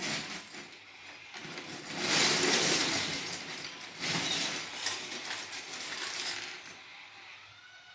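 Loose plastic Lego pieces clattering and scraping as the bucket of a motorised Lego Technic rope shovel digs into a heap of them, with two louder spells of rattling, about two seconds in and again about four seconds in.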